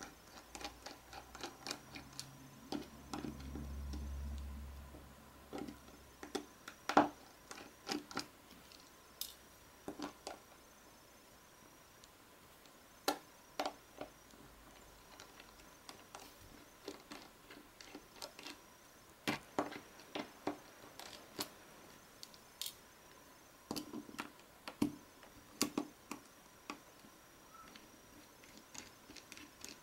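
Light irregular clicks and taps of a small precision Phillips screwdriver backing the housing screws out of a Samsung Galaxy Nexus, with the phone being handled on the mat. A low dull rumble sounds briefly about four seconds in.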